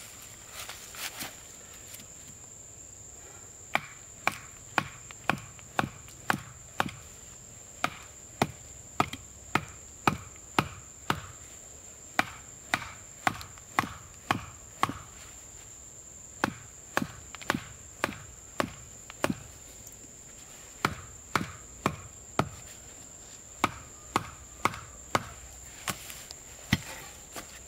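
Repeated chopping blows on wood, about two a second, in three runs with short pauses between them. A steady high insect drone runs underneath.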